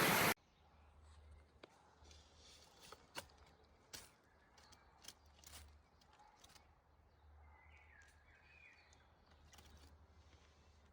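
Rushing stream water cuts off abruptly a fraction of a second in, leaving faint outdoor quiet with a handful of soft clicks and ticks and a short bird chirp about eight seconds in.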